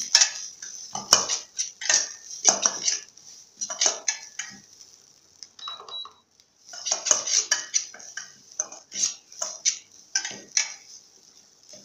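A metal utensil scraping and knocking against a stainless steel pan while stir-frying chopped chilies, in irregular strokes with a short pause about halfway through.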